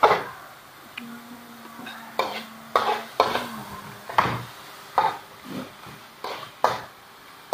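Metal tongs stirring stir-fried vegetables in a stainless steel wok, knocking and scraping against the pan in irregular clatters about once or twice a second.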